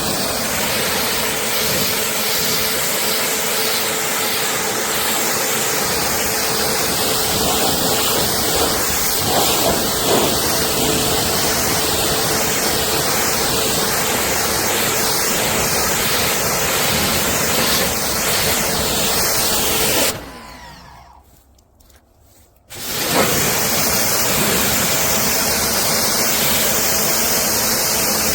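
Compact pressure washer running and spraying water: a steady motor-pump hum under the hiss of the spray. About twenty seconds in it cuts out, and some three seconds later it starts again at full level.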